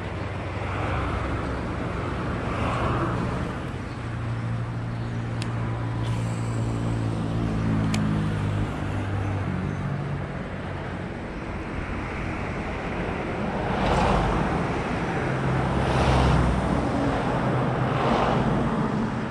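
Road traffic: motor vehicles passing, with a steady engine hum through the middle and three rising-and-falling swells as cars go by near the end.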